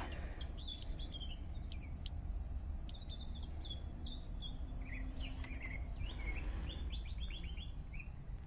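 Small birds chirping in quick, short high calls, in bursts, over a steady low hum.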